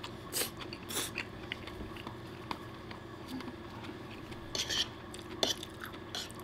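A man chewing a mouthful of spaghetti with scattered light clicks of a metal fork against a wooden plate as he twirls more pasta. A few short, sharper sounds come about two-thirds of the way through.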